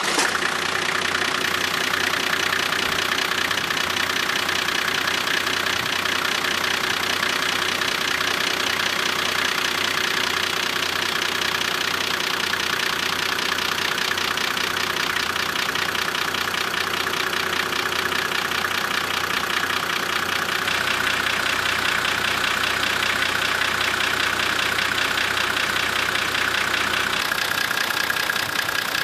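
Nissan Y60 Safari diesel engine idling steadily with a fast, even diesel clatter, just after being started following an oil change.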